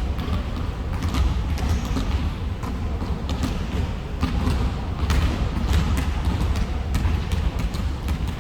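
Basketballs bouncing on a gym floor: many irregular thuds, several balls at once, over a steady low hum in the hall.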